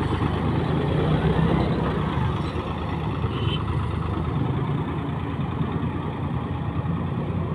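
Al-Ghazi tractor's diesel engine running steadily under load as it hauls a heavily loaded sugarcane trolley, slightly louder about a second in.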